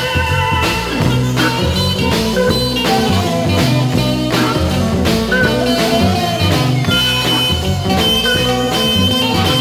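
A 1966 blues/R&B 45 rpm record playing an instrumental stretch of the band, with a stepping bass line under a steady drum beat and held guitar notes.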